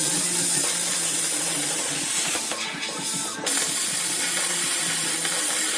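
Steady loud hiss that drops back briefly about two and a half seconds in, then resumes.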